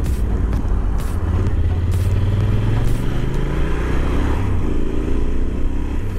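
Yamaha Super Ténéré's parallel-twin motorcycle engine running and pulling away, its pitch rising twice as it accelerates through the gears.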